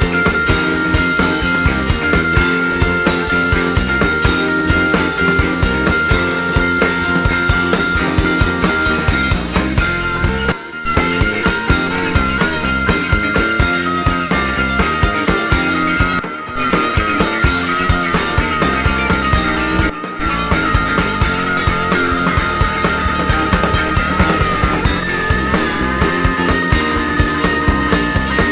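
A rock band playing live, an instrumental stretch with drums, bass and a high lead line. The lead holds one long steady note for about nine seconds, then bends and wavers. The sound cuts out briefly three times.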